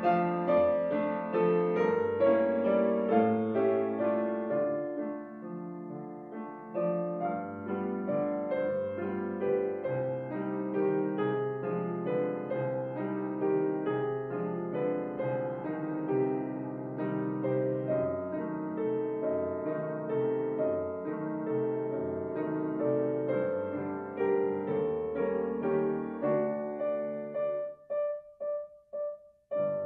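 Grand piano played solo: a continuous piece of many overlapping notes, dropping quieter around six seconds in. Near the end it breaks into a few short, detached chords with brief silences between them.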